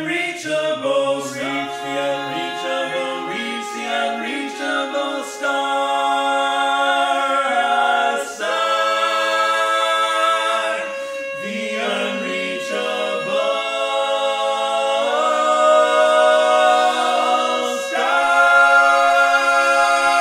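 Male barbershop quartet (tenor, lead, baritone, bass) singing a cappella in close four-part harmony, moving through sustained chords. It builds to a loud held chord near the end.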